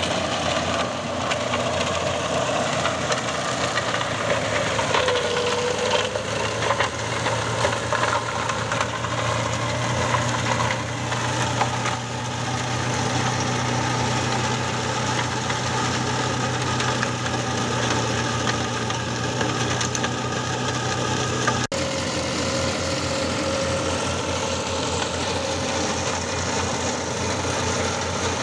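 John Deere tractor engine running steadily under load while its rear-mounted flail mulcher shreds olive pruning debris, with an irregular crackle of branches being broken up, strongest in the first half.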